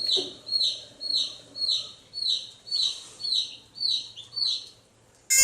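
A bird chirping over and over: a high, downward-sliding chirp about twice a second that fades out about four and a half seconds in. A loud bleat cuts in at the very end.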